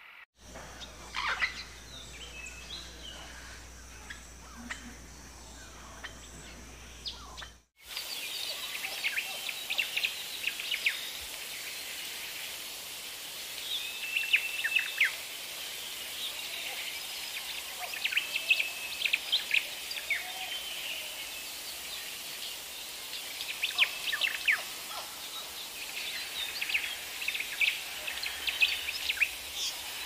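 Rainforest ambience: many birds chirping and calling in short whistled notes and trills over a steady hiss. The background changes abruptly a few tenths of a second in and again about eight seconds in, where it gets louder and the bird calls come thicker.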